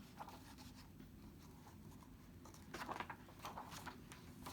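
Faint paper rustling from the pages of a picture book being handled and turned, in a few short soft rustles clustered about three seconds in, over a low room hum.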